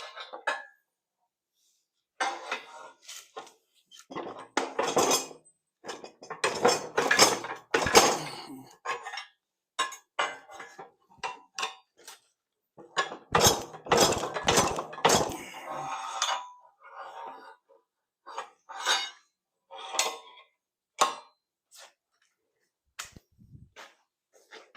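Half-inch steel plate clinking and knocking against threaded anchor bolts as it is wiggled up off them, in short spells with pauses between; the bolt holes are a very tight fit.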